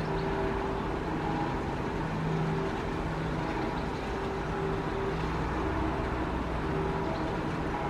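Auer LS10 electric rotary siren coasting down after its test signal, its rotor on a damaged bearing still turning. It gives a faint low hum at a steady pitch that wavers in and out, over a steady background rumble.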